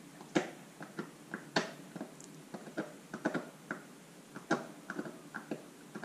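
Irregular light clicks and taps, two or three a second, from handling a stereo microscope while bringing a blade edge into focus.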